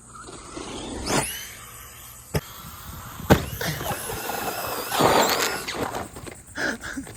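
Traxxas Stampede RC truck's electric motor whines up fast about a second in as it launches. Two sharp impacts follow, about a second apart, the second the loudest, as the truck lands hard. The whine carries on and a noisy rush comes around five seconds in.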